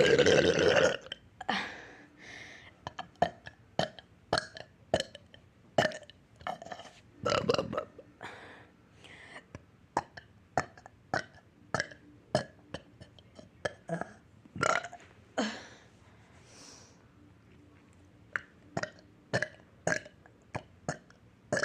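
A person burping over and over: a long burp at the start and another about seven seconds in, with many short burps in between and after.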